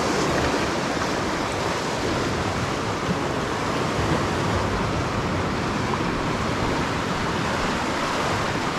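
Small surf washing and foaming over shoreline rocks: a steady rushing wash of water.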